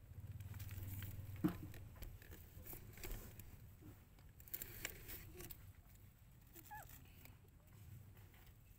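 Newborn puppies nursing and shuffling in straw: faint rustling and small clicks, with a sharp click about one and a half seconds in and a couple of brief high squeaks a little before the end.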